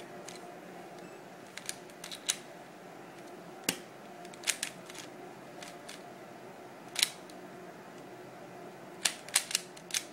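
Scattered sharp plastic clicks from a speed cube being handled and turned, with a quick run of four or five clicks near the end.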